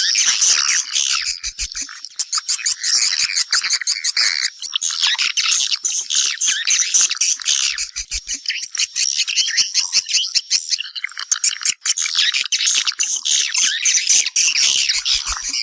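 Swiftlets calling: a dense, continuous chorus of high chirps and rapid clicking twitters. It is the kind of swiftlet call used to lure the birds to come and nest.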